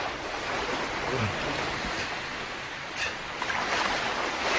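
Steady wash of surf on a beach, an even rushing noise. A brief low falling sound about a second in.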